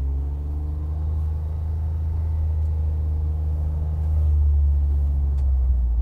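John Deere Gator 825i utility vehicle's three-cylinder gasoline engine running with the Boss V snowplow on the front, a low steady drone heard from the cab. The pitch sinks slightly at first, and the drone gets a little louder about four seconds in.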